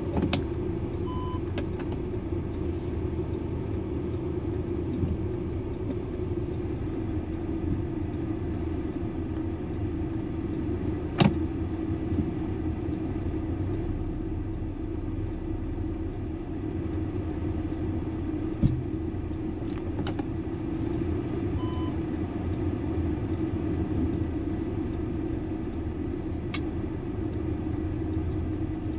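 Steady engine and road rumble inside the cabin of a 2012 VW Eos on the move, the engine running smoothly after its misfire repair. Two short electronic beeps, one near the start and one about two-thirds through, and two sharp clicks around the middle.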